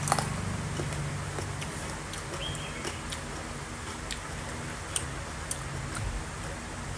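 Crunchy bites and chewing of fresh, crisp plums. There is a loud crunch at the start, scattered smaller crunches, and two sharp ones about five seconds in, over a steady low hum.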